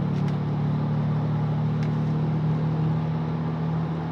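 Mercedes ML320's 3.2-litre V6 pulling steadily under light throttle, heard from inside the cabin with road noise. It runs smoothly without misfiring, though the car feels held back in what the owner takes for some kind of limp mode.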